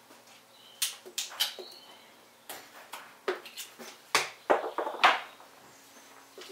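Hoof pick scraping and knocking dirt out of a horse's hoof: a string of short, sharp scrapes and clicks, the loudest and heaviest about four to five seconds in.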